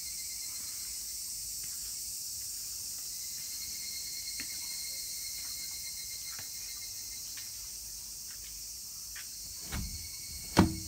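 Steady high-pitched drone of insects with a few faint ticks. Near the end, two knocks, the second sharp and the loudest, as a stuck aluminium-framed sliding glass door is tugged.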